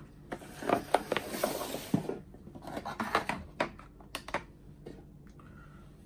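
Light clicks and taps of a small titanium pocket knife being handled and set on a digital scale, with some rustling over the first two seconds; the clicks thin out after about four and a half seconds.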